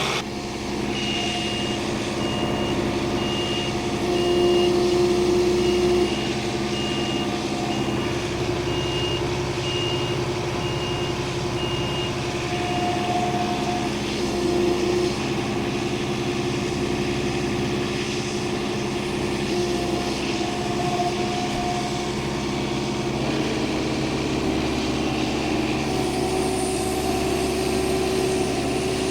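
Engine of a piece of log-handling machinery running steadily. For the first dozen seconds a reversing alarm beeps about once a second, then stops, and the engine note shifts a little past the middle.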